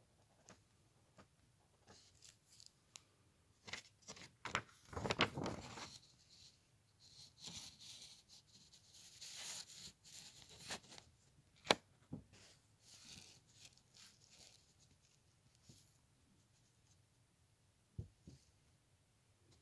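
Sheet of drawing paper being handled, rustling and crinkling in uneven bursts with scattered light clicks, and one sharp tap about twelve seconds in.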